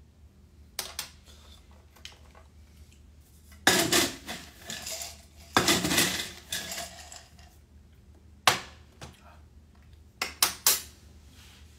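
Ice cubes clattering against a glass as it is scooped through an ice bucket, in two longer rattles, then a few sharp single clinks.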